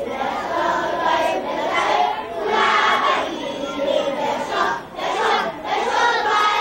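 Large crowd of schoolchildren shouting together, many voices at once, with brief dips near the middle.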